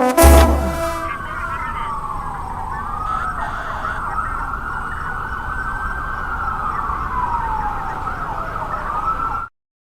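A last brass chord closes a song, then a siren wails, rising and falling slowly for about eight seconds over a low rumble, and cuts off suddenly near the end.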